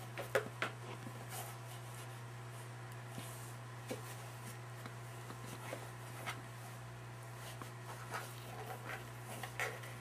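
Cats' paws scuffing and scratching against a cardboard box in short, irregular strokes, a few louder taps near the start and near the end, over a steady low hum.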